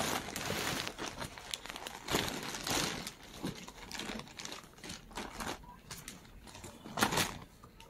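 Thin white plastic carrier bag crinkling and rustling in irregular bursts as a cat pushes into it and a hand rummages among the medicine boxes inside. There is a louder crinkle about seven seconds in.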